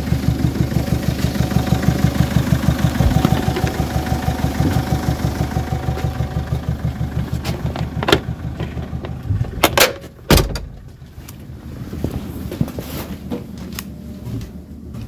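Peugeot 807 2.0 HDi diesel engine idling with an even, rhythmic knock, which the mechanic puts down to a faulty hydraulic valve lash adjuster on one cylinder. About ten seconds in come a few sharp clacks and a heavy thud, and then the engine sound drops much quieter.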